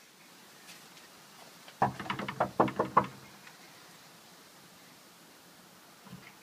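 Knocking on a wooden front door: a quick run of about seven raps, about two seconds in.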